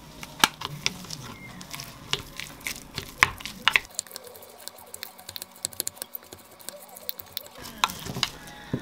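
Wooden spoon stirring crab sticks, chopped green onion and mayonnaise in a glass bowl: wet mixing with many sharp clicks of the spoon against the glass.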